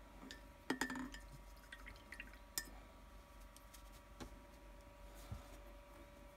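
A paintbrush being rinsed in a ceramic mug of water: a few faint clinks of the brush against the mug, with a little splashing. The loudest clinks come just under a second in and again at about two and a half seconds.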